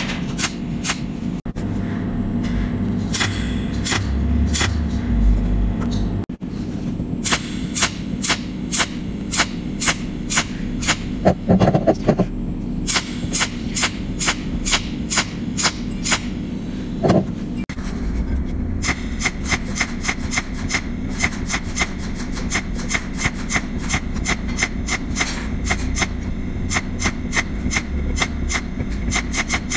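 Cold welding machine firing pulse spot welds with its tungsten needle, a sharp click with each pulse at an even two to three a second, over a steady low hum.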